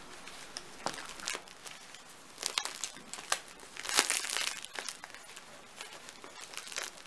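Crisp, crackly crust of a freshly baked loaf of homemade bread crackling and crunching under the fingers as the loaf is squeezed and turned by hand; irregular crackles, loudest about four seconds in.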